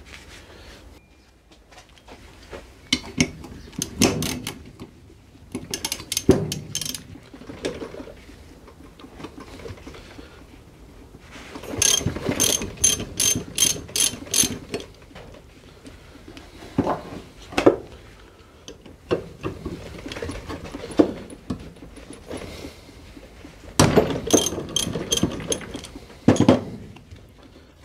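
Hand socket ratchet clicking in several separate runs of rapid clicks, as bolts on a motorcycle rear brake caliper are undone.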